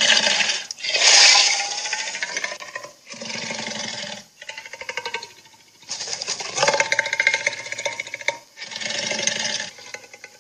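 Cartoon Hydra monster sound effects: a string of about six growls and roars, each lasting one to two seconds, with short gaps between.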